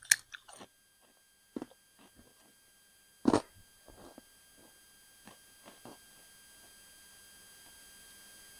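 Ruffled potato chips crunching as they are bitten and chewed: a scatter of sharp, short crackles, the loudest about three seconds in, then fainter and sparser.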